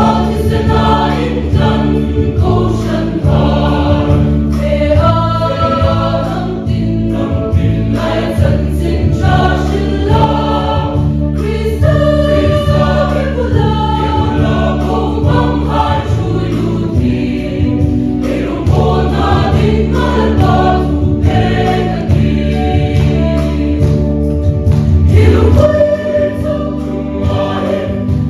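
A choir singing a Christian hymn over instrumental accompaniment with a steady low bass line.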